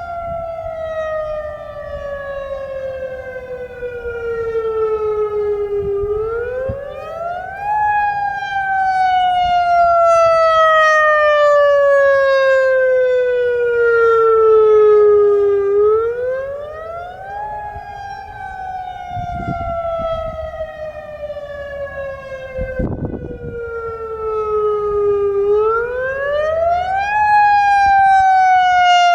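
Federal Signal EOWS 612 electronic outdoor warning siren sounding the attack signal: a loud tone that climbs quickly for about two seconds, then slowly falls for about eight, cycling three times.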